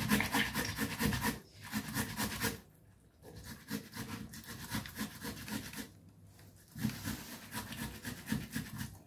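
Tomato rubbed back and forth on a stainless-steel flat hand grater over a bowl: quick scraping strokes in runs, with short pauses about three and six seconds in.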